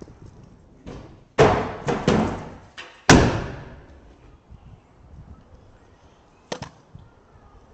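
Pro kick scooter slamming down on concrete during tricks: a few sharp clatters, the loudest about a second and a half and three seconds in, the last one ringing out briefly. A quick double click near the end.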